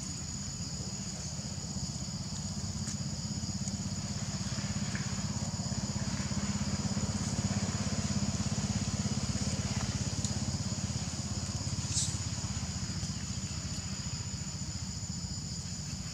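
A motor engine running with a steady low rumble that swells slightly midway, under a steady high-pitched insect drone; one sharp click about three-quarters of the way through.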